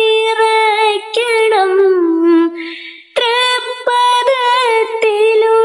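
A high solo voice singing a Malayalam devotional song in long held notes with vibrato. The phrase falls and breaks off about three seconds in, then a new phrase begins.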